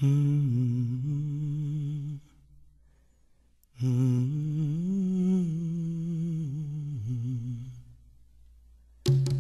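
A solo voice humming a slow melody in two long phrases with vibrato, with a pause of about a second and a half between them.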